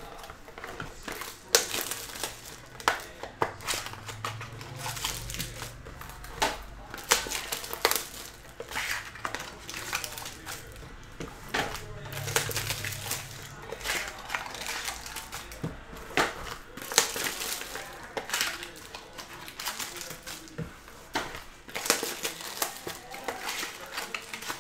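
Plastic shrink-wrap and a clear plastic bag crinkling and crackling as trading card boxes and packs are unwrapped by hand, in a busy run of sharp crackles.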